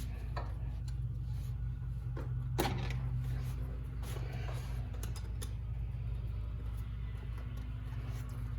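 Scattered light clicks and knocks of hand work fitting a truck's cold air intake, over a steady low hum.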